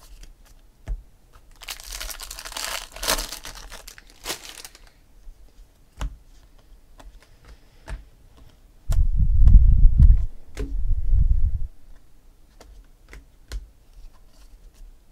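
Hands sorting a stack of baseball trading cards: scattered sharp clicks as cards are flicked and slid past each other, with a longer stretch of rustling between about two and five seconds in. The loudest sound is a deep rumble about nine seconds in, lasting nearly three seconds in two parts.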